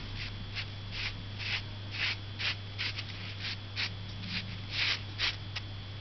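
Chinese painting brush dabbing and stroking ink onto paper: a quick, uneven series of short dry swishes, about two or three a second.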